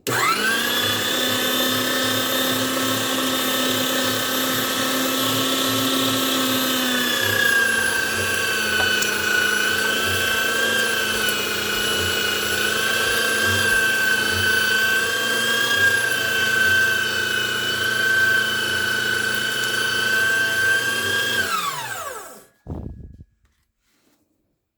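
Electric meat grinder's motor switched on and running steadily with a whine. Its pitch dips slightly about seven seconds in, and near the end it is switched off and winds down, followed by a brief knock.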